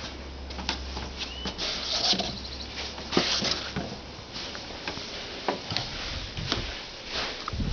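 Irregular taps, knocks and scuffs of footsteps on wooden deck boards, with a brief high squeak about a second and a half in.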